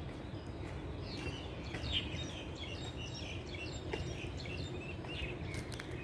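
A bird chirping in a quick run of short high notes, starting about a second in, over a steady low background rumble.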